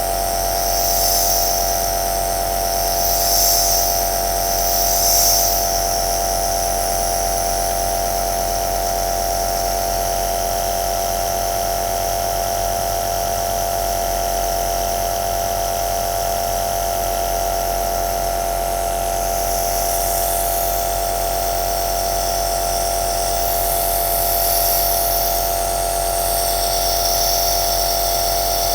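Compressor nebulizer running steadily, its motor humming with a high airy hiss over it that swells briefly three times early and again in the second half.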